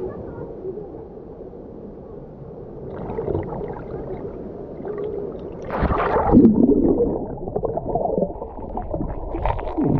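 Muffled water sounds picked up by a waterproof camera in the water: gurgling and sloshing, with a louder splash about six seconds in.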